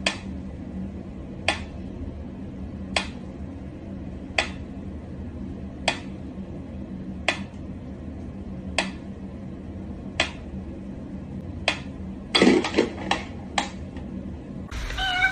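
Mechanical pendulum metronome ticking slowly and evenly, one sharp tick about every one and a half seconds. Near the end the ticks give way to a quick flurry of clicks and knocks.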